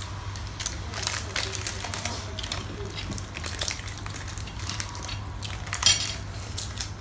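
Metal spoons and forks clicking and scraping against plates and a glass bowl as people eat, with one louder ringing clink about six seconds in, over a low steady hum.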